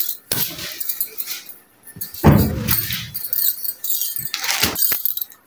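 Small hard trinkets jingling and clinking as a hand handles them, with a louder dull knock of handling about two seconds in.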